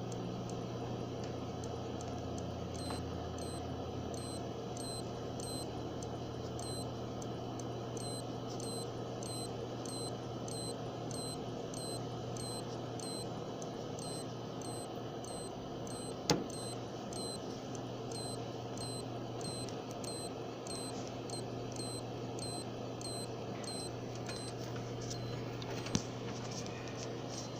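Seagate ST1000DX001 SSHD hard drive making noise from its circuit board: short high-pitched chirps repeating about twice a second over a steady electrical hum, with two sharp clicks. The owner ties the noise to the drive failing to spin up or be detected.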